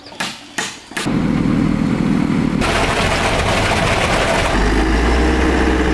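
A concrete mixer's engine running steadily while concrete is discharged down its chute, after a few short knocks at the start. The sound shifts about two and a half seconds in, and a deeper hum comes in near the end.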